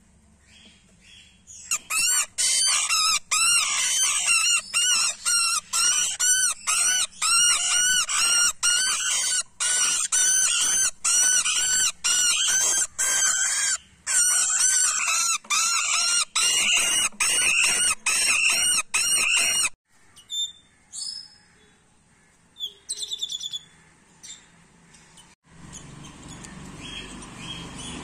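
Small parrots calling in a rapid, loud string of repeated notes, two to three a second. The string stops abruptly about two-thirds of the way through, leaving a few scattered calls, then low background noise near the end.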